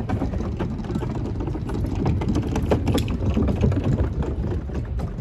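Wheels of a large wheeled bin cart rolling over wooden decking boards: a rapid, irregular clatter of clicks and knocks over a low rumble.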